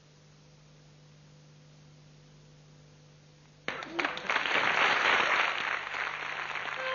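Faint electrical hum, then about three and a half seconds in a studio audience suddenly breaks into loud applause that carries on to the end.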